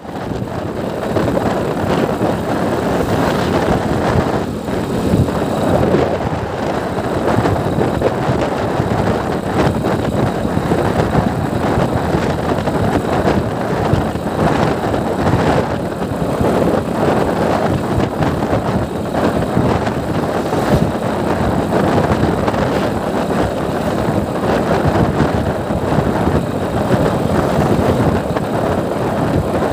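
Motorcycle cruising at a steady speed: a continuous rush of wind over the microphone mixed with road and engine noise.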